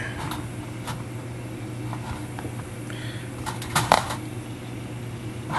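Light metallic clicks and clinks of brass clock-movement plates and wheels being handled, about half a dozen scattered taps, the loudest a quick double clink about two-thirds of the way in, over a steady low hum.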